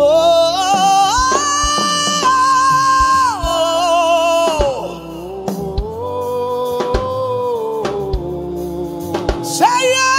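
A man singing a slow worship chant into a microphone, gliding up into long held notes with vibrato. Underneath are a steady held backing tone and soft low thuds at intervals.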